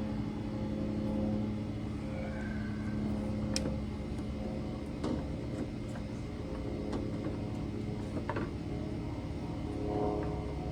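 A steady mechanical hum runs throughout, with a few light clicks and taps from small screws and parts being handled while a headlight assembly is fitted.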